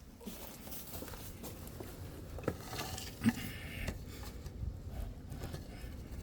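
Rustling and scattered light knocks, with one sharper knock about three seconds in, as someone moves about a hay-floored chicken coop.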